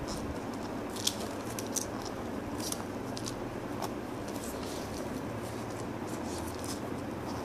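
Scattered soft crackles and rustles of hands handling objects, over a steady background hiss.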